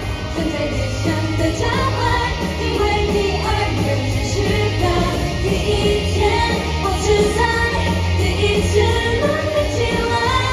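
K-pop girl group singing live over a loud pop backing track with a steady heavy bass, heard through the arena sound system from the audience.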